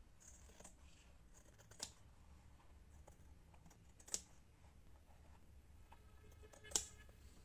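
Scissors trimming felt lining: faint snips, with three sharp clicks a couple of seconds apart.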